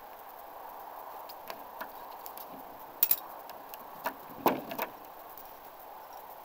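Throwing knives being pulled out of a wooden plank target: a few sharp clicks and knocks of steel blades against wood and against each other, the loudest about four and a half seconds in, over a steady background hiss.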